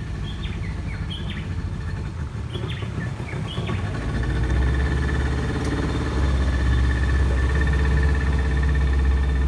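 A small boat's engine running steadily, growing louder about four seconds in and again around six seconds. Birds chirp over it during the first few seconds.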